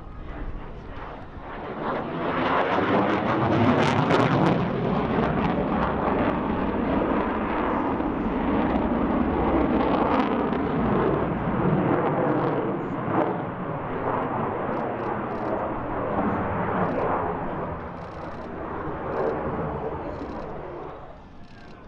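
F-16 fighter jet's engine noise as it flies past: a loud, wavering rush that swells about two seconds in and fades away near the end.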